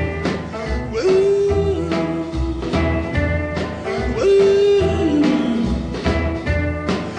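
Background music: a song with a singing voice over a steady bass beat.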